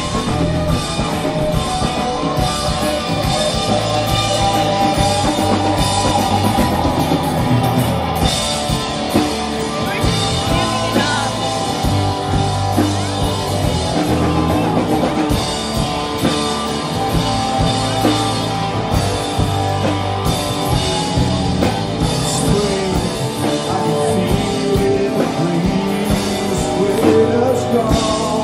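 Live rock band playing a song through stage speakers, with drum kit, electric and acoustic guitars, bass and keyboard, and a sung vocal.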